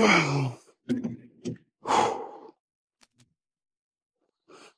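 A man straining through shoulder press reps, breathing hard: a groan falling in pitch, two short grunts, then a long, loud breath out about two seconds in.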